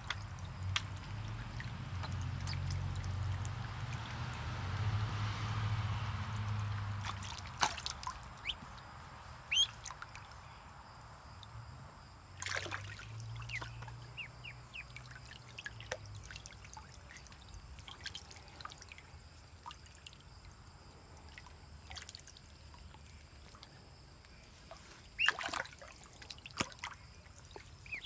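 Water trickling and splashing as ducklings paddle in a shallow pool, with scattered short, high peeps. The splashing is busiest in the first several seconds.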